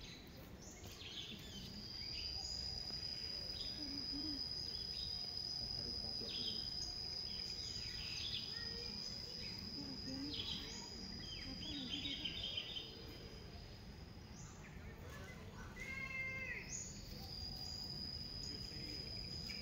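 Outdoor wildlife ambience: a steady high-pitched insect drone that breaks off briefly about fifteen seconds in, with scattered bird chirps and a short call with several stacked tones near the sixteen-second mark, over a low background rumble.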